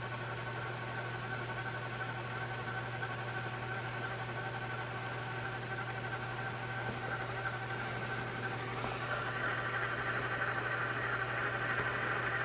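JVC GR-FX11 VHS-C camcorder's tape transport rewinding a cassette, a steady whir over a low hum that gets a little louder and brighter about three-quarters of the way through.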